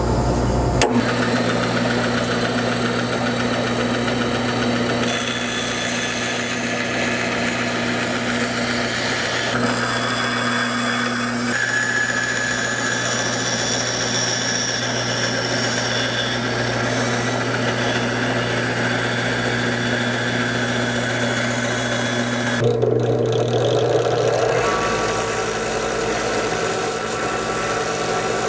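Bandsaw running, its blade cutting a walnut blank, with a steady motor hum. The sound changes abruptly several times.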